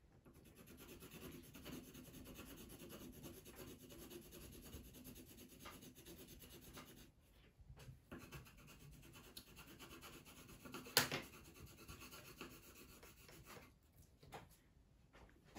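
Faint scratching of a coloured pencil rubbing on paper in steady back-and-forth shading strokes, pausing briefly about seven seconds in. There is a single sharp knock about eleven seconds in, and the strokes stop near the end, leaving a few light taps.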